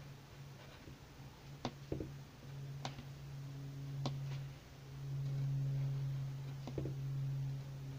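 Pencil drawing on paper, with about five sharp ticks as the pencil point strikes the sheet, over a steady low hum.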